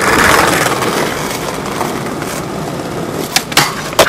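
Skateboard wheels rolling over asphalt with a steady rumble, then three sharp clacks of the board near the end.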